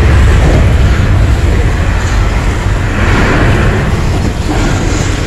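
Simulated earthquake effects in a studio-tour attraction: a loud, steady deep rumble with a dense wash of noise over it.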